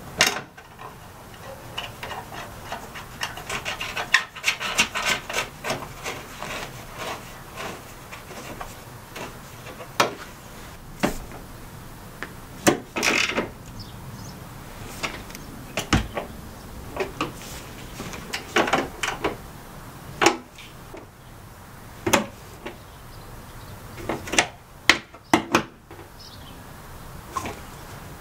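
Hand work on the plastic cowl and trim under a car's hood: parts rubbing and scraping, scattered sharp clicks and knocks, and a run of rapid clicking a few seconds in.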